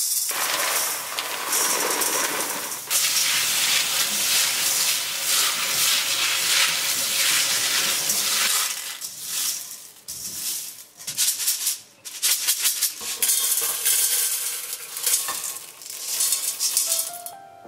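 Dried azuki beans poured into a stainless steel colander, rattling against the perforated metal, then washed under running tap water while hands stir and rub them in the colander.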